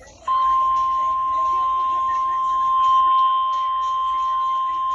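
NOAA Weather Radio 1050 Hz warning alarm tone, the signal that switches on weather alert receivers, sounded for the weekly test. It is one steady, unbroken high tone that starts abruptly a moment in, over faint radio hiss.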